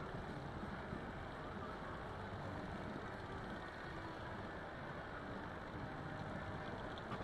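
A spinning roller coaster car being hauled up the chain lift hill: the lift chain and car give a steady mechanical running noise.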